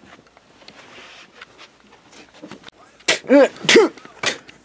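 A person's voice crying out in two short, pained groans about three seconds in, then a brief third one. Before them there is only faint rustling and small clicks.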